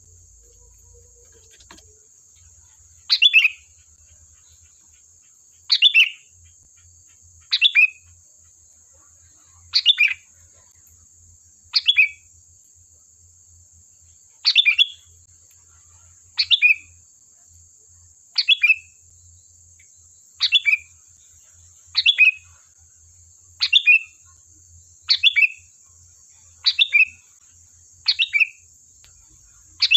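Sooty-headed bulbul (kutilang) giving a short, loud call phrase over and over, about once every one and a half to two seconds, over a steady faint high-pitched hiss.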